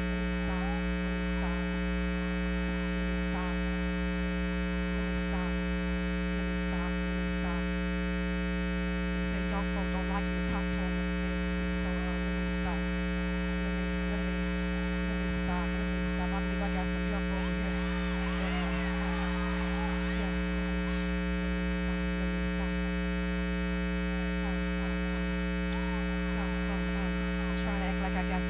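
Steady electrical mains hum with a buzz of many even overtones, over faint indistinct voices from the crowd that rise a little about two-thirds of the way through.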